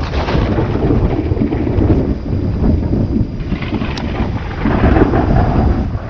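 Loud, low rumble of rolling thunder from a lightning storm, swelling and easing several times.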